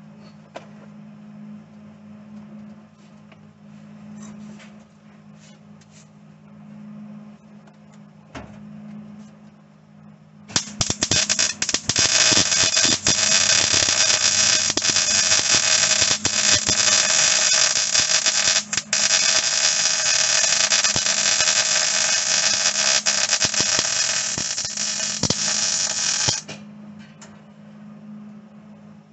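Wire-feed welder arc crackling steadily as a bead is run on thin sheet-steel floor panel; it starts about ten seconds in and stops a few seconds before the end. Before and after, a low steady hum and a few light handling clicks.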